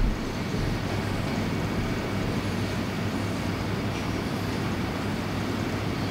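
Steady low rumble of background room noise in a lecture hall, with no speech.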